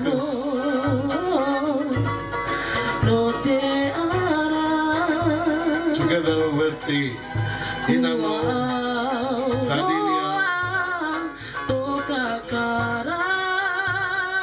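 Cook Islands string band playing live: several ukuleles strummed to a steady beat, with voices singing a wavering melody over them.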